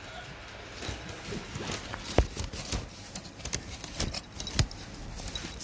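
A small dog scrambling in a collapsible fabric play tunnel on a tile floor: an irregular run of clicks, knocks and rustles, with two louder knocks about two seconds in and again about four and a half seconds in.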